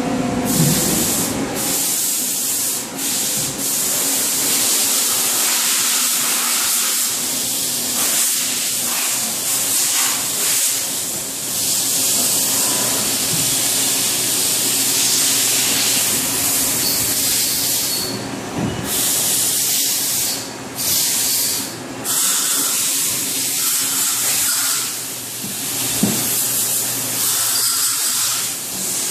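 Steady loud hiss over a steady low hum of running machinery. The hiss cuts out briefly several times in the second half.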